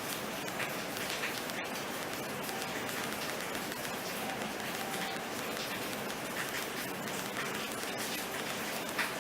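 Steady hiss with scattered faint taps.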